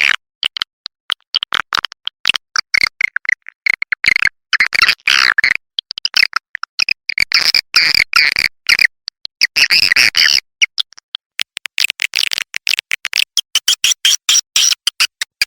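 Swiftlet calling track: rapid, dense high-pitched twittering and chattering chirps in bursts, broken by brief silent gaps between phrases. It is the lure call played at swiftlet houses to draw swiftlets in to roost and nest.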